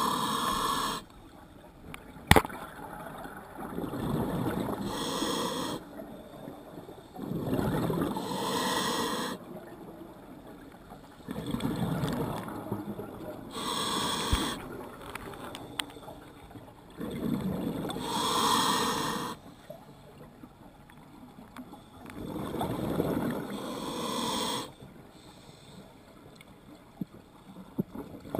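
Scuba diver breathing through a regulator underwater: about six bursts of exhaled bubbles, each roughly two seconds long and four to five seconds apart, with quieter inhalations between. A single sharp click about two seconds in.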